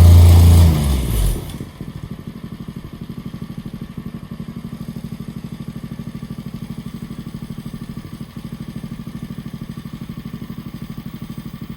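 Small two-stroke chainsaw engine: a loud burst of revving in the first second and a half, then dropping to a steady, evenly pulsing idle.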